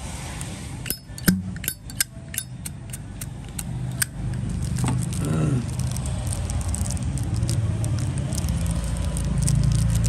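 Zippo lighters being handled, giving several sharp metallic clicks and clinks in the first four seconds. From about five seconds in, a steady low rumble runs underneath.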